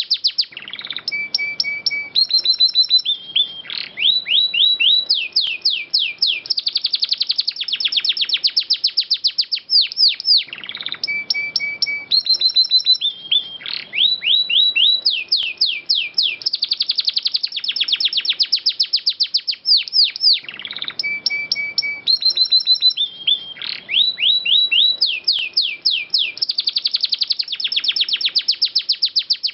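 Domestic canary singing long rolling trills of rapid notes mixed with short held whistles. The same song phrase repeats about every ten seconds, as in a looped recording.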